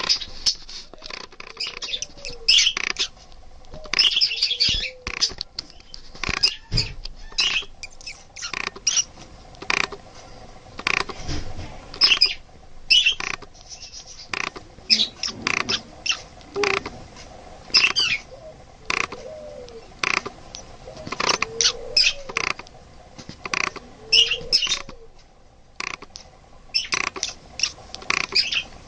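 Budgerigar chirping in many short, sharp calls, irregularly spaced and often several in quick succession.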